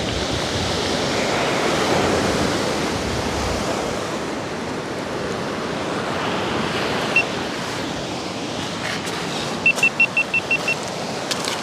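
Surf breaking and washing up a pebble beach: a steady rushing noise that swells about two seconds in. Near the end comes a quick run of about seven short, high beeps.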